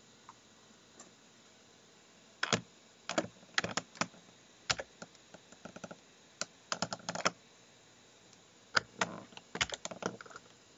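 Typing on a computer keyboard: irregular key clicks in short clusters, starting about two and a half seconds in.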